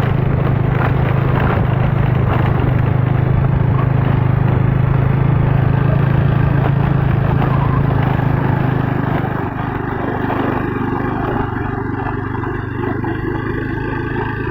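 A vehicle engine running steadily on the move, with wind and road noise over it. It eases off slightly about two-thirds of the way through.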